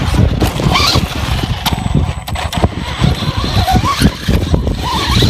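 Radio-controlled trucks' electric motors whining, the pitch rising and falling in short spurts with the throttle, over a rough low rumble.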